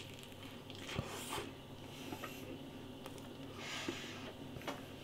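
Faint chewing of a mouthful of McChicken sandwich, with a sharp click about a second in and two short hissing sounds.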